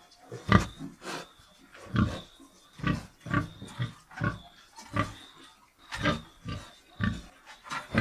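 Pigs grunting: a run of short grunts, about two a second.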